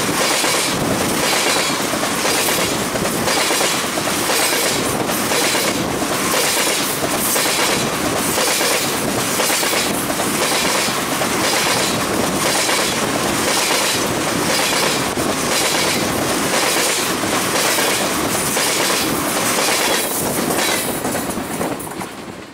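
Freight train tank cars rolling past at close range: a steady rush of steel wheels on rail with repeated clickety-clack as the wheels cross rail joints. The sound drops away near the end as the last car goes by.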